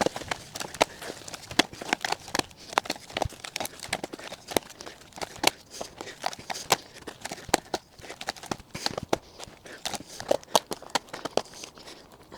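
Interlocking plastic shed-base grid panels being clipped together and stepped into place: an irregular run of sharp plastic clicks and knocks, several a second.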